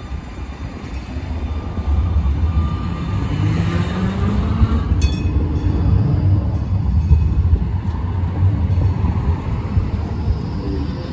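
Bombardier Flexity Outlook tram passing close by on street rails: a steady low rumble of wheels on track, with the motor whine rising in pitch as it gathers speed, and a short sharp click about five seconds in.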